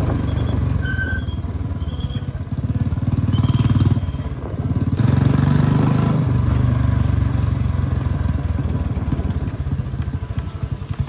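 Royal Enfield Bullet 350's single-cylinder engine running through a loud aftermarket 'pataka' silencer as the bike rides slowly, heard close from the rider's seat. The exhaust note swells twice as the throttle opens, about three and five seconds in.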